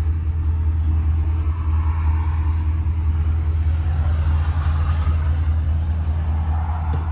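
An engine running steadily: a constant low rumble.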